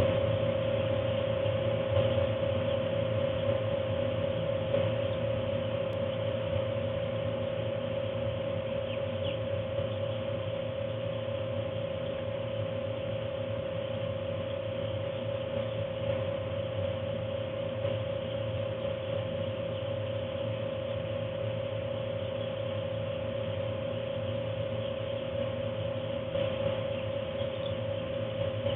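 Forced-air heater blower running with a steady hum and one constant tone, under the massed peeping of thousands of two-day-old Ross 308 broiler chicks.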